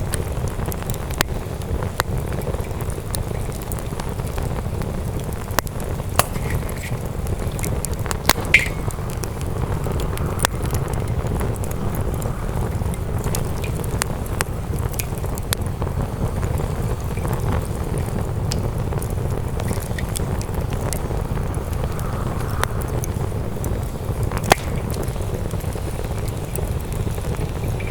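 Wood campfire crackling, with irregular sharp pops, a few louder than the rest, over a steady low rumble.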